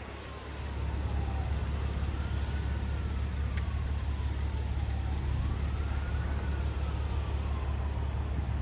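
An emergency vehicle's siren wailing faintly, its pitch rising and falling slowly about every three to four seconds. Under it runs a loud, steady low rumble that swells up about half a second in.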